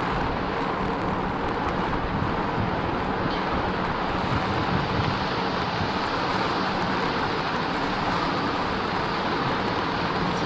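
Motorcycle running steadily on the move, with wind rushing over the microphone.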